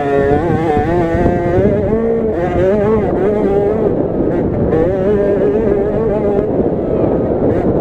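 KTM SX50 minibike's 50cc two-stroke single-cylinder engine revving hard under race load, its pitch rising and falling again and again as the throttle is worked.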